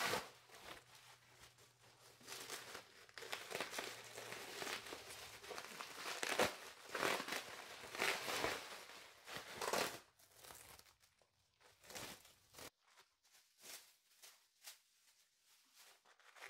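Clear plastic packing wrap crinkling and rustling as it is pulled off a ceramic bonsai pot, in irregular bursts. The last several seconds turn quieter, with only sparse crackles.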